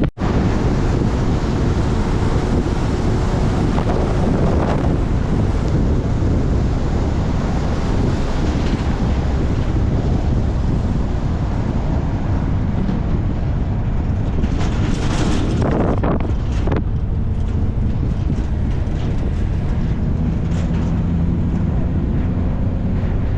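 Steady low rumble of a car on the move, with wind buffeting the microphone. A louder, brighter rushing whoosh rises and falls about fifteen seconds in and lasts around two seconds.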